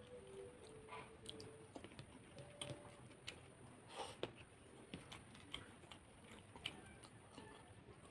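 Faint, scattered clicks and wet smacks of eating spicy chicken feet and rice by hand: fingers picking at the food and the mouth biting and chewing, with the loudest smack about four seconds in.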